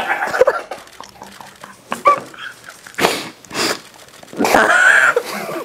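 Short, breathy bursts of laughter, the longest near the end.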